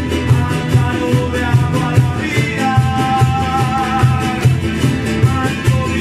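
Small acoustic string ensemble playing with a steady beat: strummed small guitars and a guitar under a violin, with a cajón keeping time.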